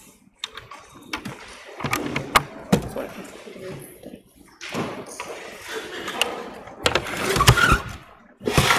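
Lectern microphone being handled: irregular knocks, clicks and rustling picked up through the PA, growing denser and louder near the end.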